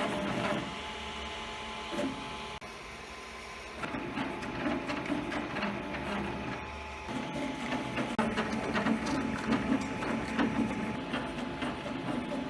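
An FDM 3D printer at work, its stepper motors whirring and buzzing as the print head moves. The sound shifts abruptly in level and pitch a few times.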